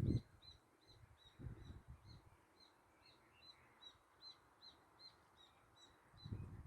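A bird repeating a short, high chirp about three times a second, steady throughout, with a few low, dull thumps or rumbles underneath.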